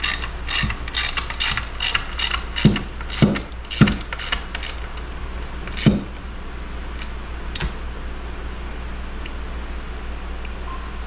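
A run of sharp metallic clicks and knocks, some with a dull thump, through the first half, then one more click and a steady low hum. No engine is running.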